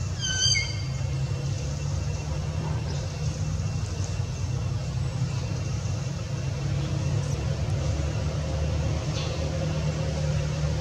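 A steady low rumble, with a brief high chirp about half a second in.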